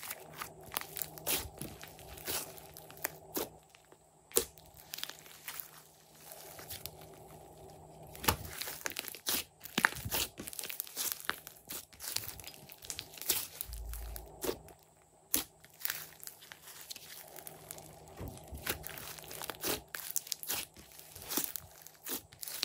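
Hands squeezing, folding and pressing a large lump of glossy slime, with irregular sticky clicks and pops as trapped air is squeezed out.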